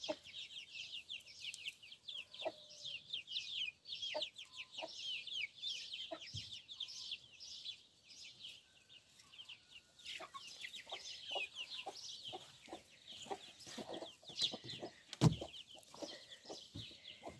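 Chicks peeping almost without pause, a quick run of short high falling peeps, with now and then a hen's low short cluck. A sharp knock about fifteen seconds in.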